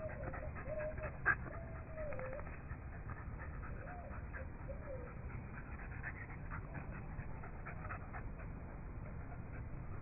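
A dog panting and snuffling close by. There is a sharp click about a second in, and a few short sliding calls in the first two seconds and again around four to five seconds in.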